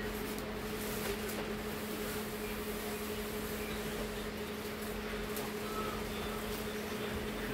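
Steady mechanical hum in a small room, holding two fixed tones, with a few faint clicks and rustles from the plastic-wrapped TV panel being handled.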